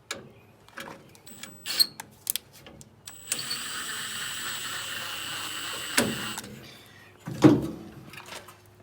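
A small electric motor, most likely a cordless drill/driver, whirs steadily for about three seconds and stops abruptly, amid clicks and knocks of metal parts being handled, with a single loud knock near the end.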